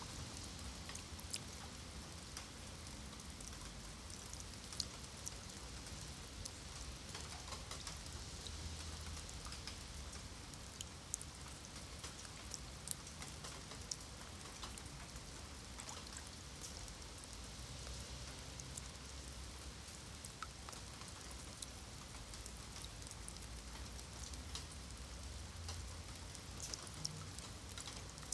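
Steady rain falling on wet paving stones and puddles: a constant hiss with many scattered sharp drop splashes close by, over a low rumble.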